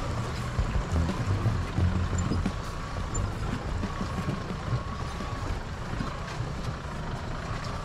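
Off-road vehicle running along a rough trail: a steady low engine rumble with a faint wavering whine.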